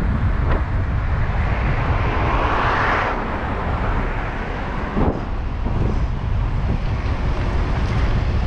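Suzuki Jimny under way: a steady low engine and road rumble, mixed with wind noise. There is a swell about two to three seconds in and a single sharp knock about five seconds in.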